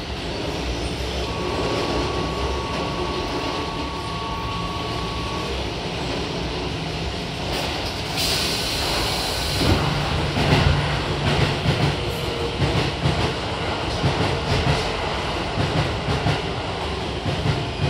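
Keio 7000 series commuter train standing at a platform with its doors open, over a steady rumble. A single steady tone sounds for about four seconds. About eight seconds in there is a burst of air hiss as the doors close. Louder, uneven low rumbling and knocks from the car follow.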